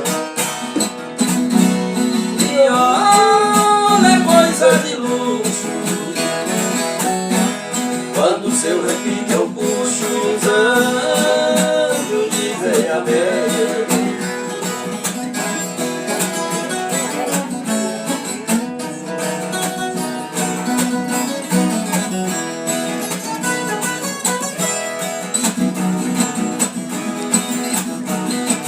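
Viola caipira, the Brazilian ten-string guitar, playing a plucked and strummed melody over steady chords.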